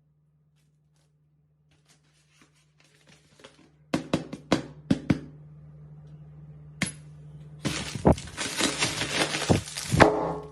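Balloons being popped with a pin: a quick run of about five sharp pops about four seconds in, a single pop near seven seconds, then a dense stretch of pops and crackling for about two and a half seconds. A steady low hum runs underneath.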